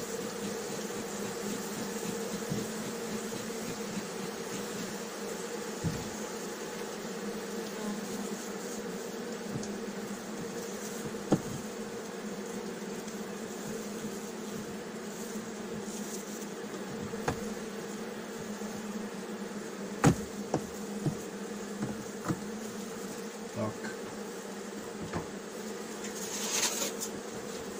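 Honeybees buzzing steadily over the frames of an open hive, a dense colony hum. A few sharp knocks sound through it, the loudest about a third and two-thirds of the way in.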